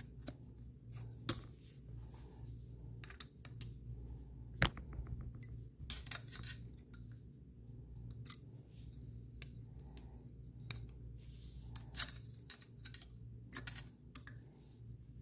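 Scattered small clicks and taps of hands handling a small RC car's motor plate and a hex driver while the motor screws are tightened, with a quick run of ticks about five seconds in. A faint steady low hum lies underneath.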